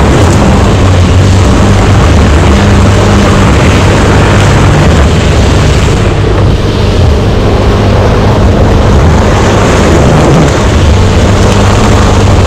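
4WD driving along a dirt track, heard from outside the body low on the door: the engine runs steadily under a constant rush of tyre and wind noise.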